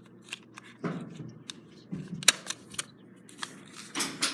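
Small plastic clicks and taps from a mini toy hairdryer as its battery is fitted back in, with one sharp knock about two seconds in.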